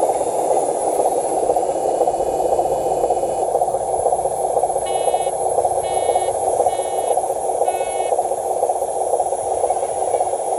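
Steady noise of a radio-controlled truck's electric motor and gearbox, with four short electronic beeps about a second apart near the middle.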